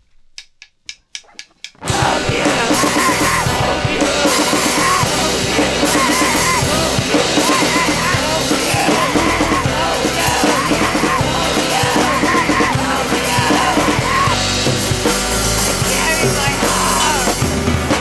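A quick run of sharp drum hits, then a loud punk rock song kicks in with full drum kit and yelled vocals.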